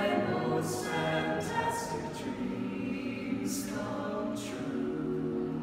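Choir singing sustained chords, with sharp 's' consonants standing out now and then.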